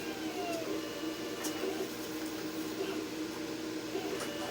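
Craft cutting machine running: a steady motor hum with short whirs that glide in pitch as the cutter moves, and a few light clicks.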